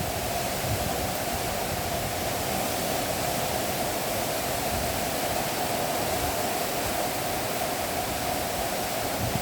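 Torrential cloudburst rain pouring down steadily, an even hiss with no let-up.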